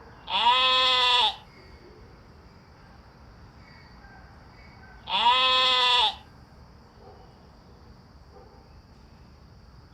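A sheep bleating twice, about five seconds apart. Each bleat lasts about a second, and its pitch rises and then falls.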